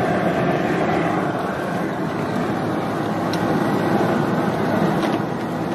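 Steady roar of a high-pressure propane burner firing under a large aluminium crawfish boil pot.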